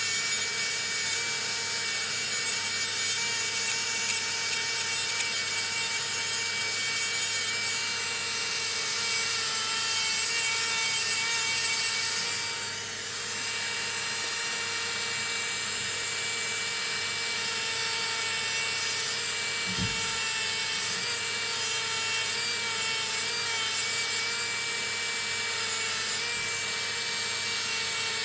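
Electric podiatry nail drill with a rotary burr grinding down thick fungal toenails, a steady high motor whine over a gritty grinding hiss that eases briefly about halfway through. This is debridement, thinning nails thickened by onychomycosis.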